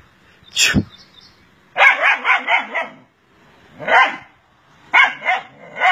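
Dog barking in short sharp barks: one bark, then a quick run of several barks about two seconds in, then a few more single barks near the end.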